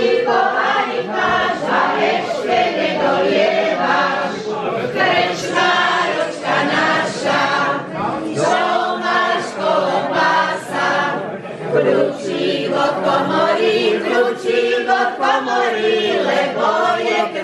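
A group of women singing a Slovak folk song together, several voices in one sustained melody without a break.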